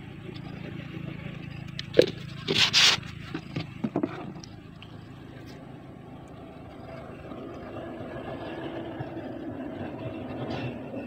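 A sharp click about two seconds in, then a couple of brief loud scrapes and a few light clicks, over a steady low background hum.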